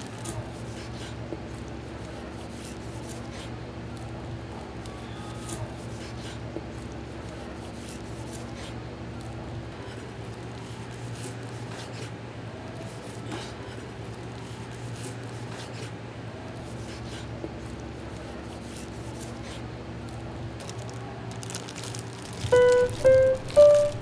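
A knife slicing fermented skate on a cutting board: faint cuts and light taps of the blade on the board over a steady low hum. About a second and a half before the end, background music with bright stepped notes comes in loudly.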